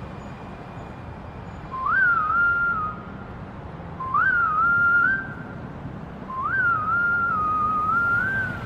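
Intro of a K-pop dance track: a whistled tune in three phrases, each jumping up at the start and then wavering, the third one longest, over a low sustained bass.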